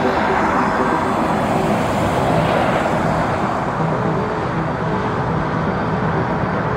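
Jet airliner engines running, a steady rushing noise with faint humming tones that swells slightly midway.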